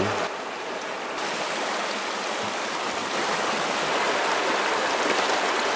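Shallow mountain stream running over stones, a steady rush of water that grows a little louder after about a second.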